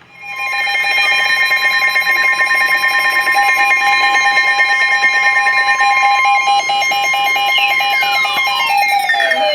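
Emergency Alert System attention signal: a loud, steady two-tone alarm held for several seconds. Near the end, falling tones sweep down over it and the higher steady tone drops out.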